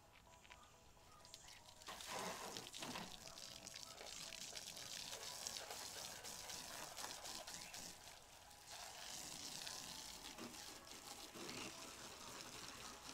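Water spraying and splashing onto a car during a hand wash, a fluctuating hiss that starts about two seconds in.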